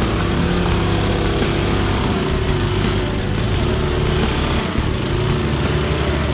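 Riding lawn mower engine running steadily as the mower churns through a mud hole, its note wavering slightly up and down.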